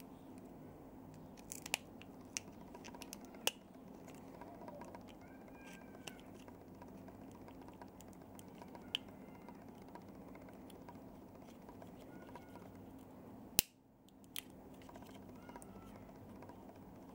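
Scattered small clicks and taps of tools and plastic parts during the disassembly of a small electronic device, over a steady low hum, with a few faint high chirps. The sharpest click comes about two-thirds of the way through.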